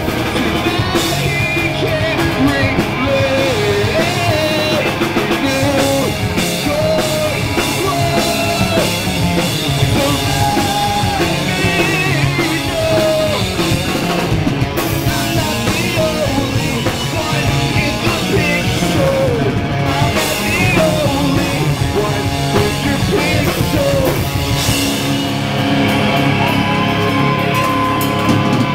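A punk rock band playing live and loud: a singer's voice over electric guitar, bass guitar and a drum kit.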